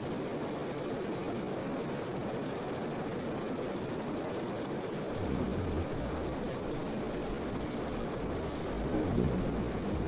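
Steady rushing water noise, with a low rumble joining in about halfway through.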